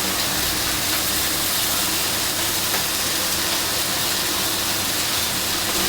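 Chicken breast sizzling on a very hot skillet over high heat, a steady even hiss, with a faint steady low hum beneath.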